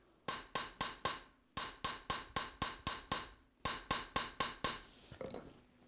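Small hammer tapping a silver ring on a steel ring mandrel: quick, light, ringing metal-on-metal strikes, about four a second, in three runs with short pauses, then a few fainter taps near the end. These are finishing blows that true up the ring's shape.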